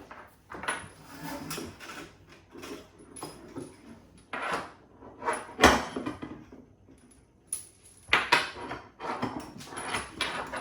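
Irregular metal clinks and knocks from a kitchen tap and its small fittings being handled, with one sharp knock a little past halfway the loudest.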